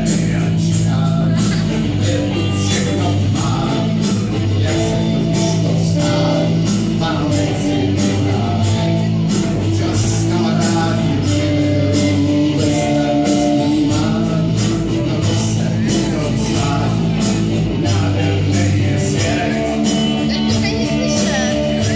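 A live rock band playing electric guitars and bass over a steady beat, with singing.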